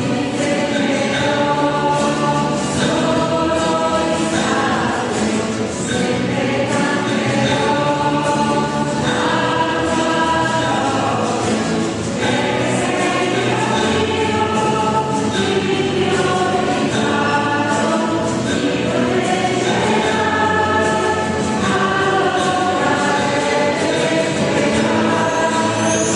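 A choir singing a hymn, with held notes that change every second or so and brief breaths between phrases.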